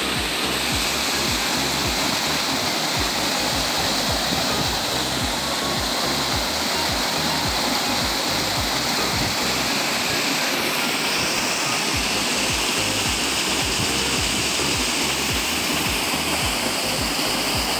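Stream water rushing and splashing over rocks in a small waterfall, a steady, unbroken rush.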